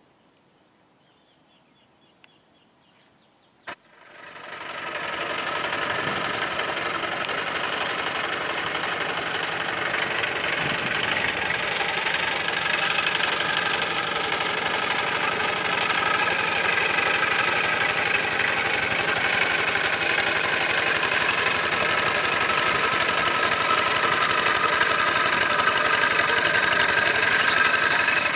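Old Kubota walk-behind hand tractor's single-cylinder diesel running steadily under load as it levels a flooded rice paddy. It cuts in abruptly about four seconds in, after a faint high insect buzz.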